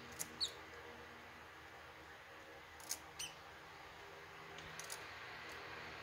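Black-capped chickadee giving a few short, high chirps, some sliding down in pitch, in two pairs about three seconds apart, with a couple of fainter ticks near the end.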